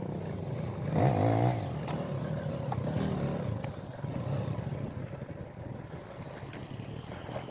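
Motorcycle engines running over a rough dirt trail, with a short rev about a second in.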